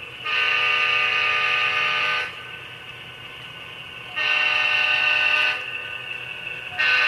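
Model diesel locomotive's QSI sound-decoder horn played through its small on-board speaker: two long blasts and a short one near the end, the chord cutting on and off cleanly, over a steady fainter hum.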